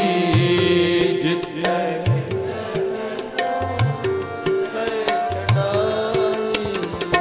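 Sikh kirtan: a tabla plays a steady beat, with crisp strokes on the small drum and bass strokes on the large drum that slide up in pitch. Harmoniums hold sustained chords underneath, and a singer draws out a word of the shabad about two seconds in.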